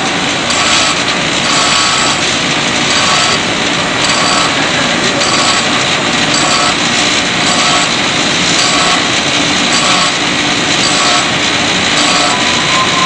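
A power tool running steadily, a loud high hiss that pulses in a regular rhythm.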